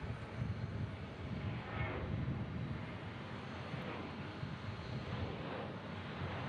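Boeing 737-800's twin CFM56-7B turbofan engines at takeoff thrust during the takeoff roll and lift-off, a steady rumble of jet noise.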